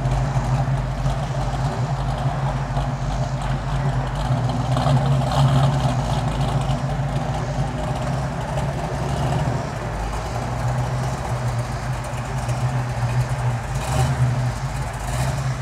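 Dodge Challenger R/T's V8 running at idle as the car rolls slowly, a steady low exhaust rumble with no revving.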